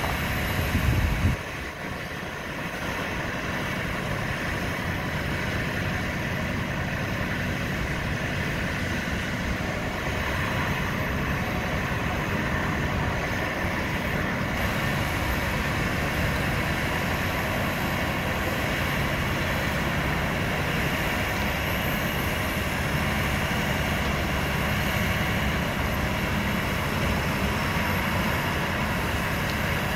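Hyundai wheeled excavator's diesel engine running steadily under hydraulic load as the boom and bucket move, louder for about the first second and a half, then settling into an even drone.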